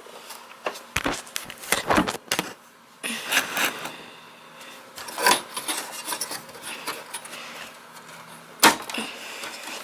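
Clicks, knocks and rubbing of metal and plastic as expansion cards are worked out of the slots of a desktop computer, with a sharp knock near the end.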